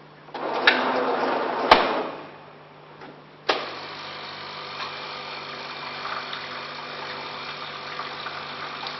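Bean-to-cup coffee machine starting its rinse cycle. First comes a loud mechanical whirring with two sharp clicks. Then, after a click about three and a half seconds in, the water pump runs with a steady hum, flushing water through the coffee lines.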